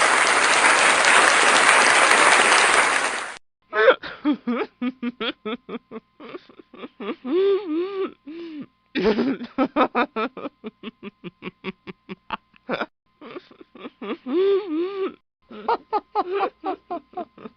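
Laugh sound effects. First a crowd laughing and applauding, which cuts off suddenly about three and a half seconds in. Then one person laughs in rapid, choppy bursts, with rising and falling pitch, to the end.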